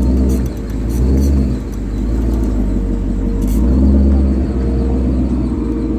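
2015 Mustang GT Performance Pack's 5.0 V8 running with a low rumble, with a few short, sharp creaks from the car: a cluster in the first second and a half and another about three and a half seconds in.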